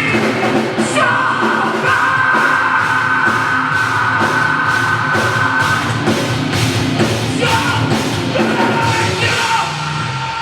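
Live post-hardcore band playing, with distorted guitars and drums and yelled vocals. Starting about a second in, a vocal note is held for several seconds.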